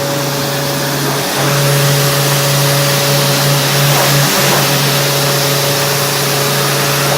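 Industrial microwave drying machine running: a steady low hum with a steady higher tone over a broad hiss. The hum dips briefly about every three seconds.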